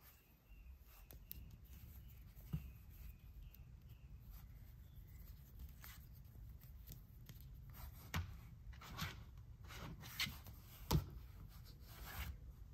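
Hard plastic action figure being handled: fingers rubbing on the plastic, with a few soft clicks and taps of its limbs and joints, more of them in the second half, and a tap as it is stood on a table.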